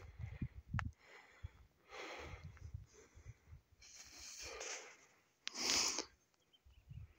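A hiker breathing hard close to the microphone, a breath about every second, the loudest near the end, over a low rumble.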